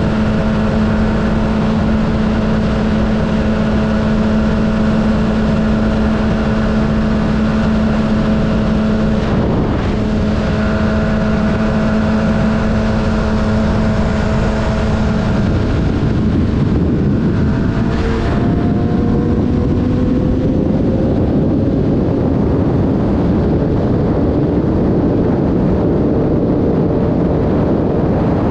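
Sport motorcycle engine running at a steady cruising pitch under heavy wind and road noise, with a brief dip about nine seconds in. A little past halfway the steady note drops away and the engine pitch climbs as it accelerates.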